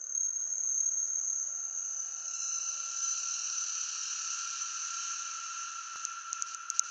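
Crickets trilling steadily in several overlapping high tones, with a few sharp clicks near the end.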